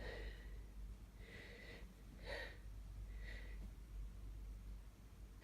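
Soft sniffs and breaths through an itchy, allergy-irritated nose, about four in the first three and a half seconds, as a sneeze builds.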